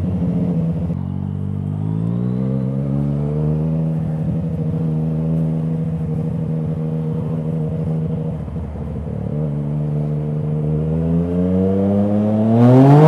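Yamaha MT-09's inline three-cylinder engine through an Akrapovič exhaust, pulling under way. The revs climb, hold steady for a few seconds, drop briefly about nine seconds in, then climb steeply near the end.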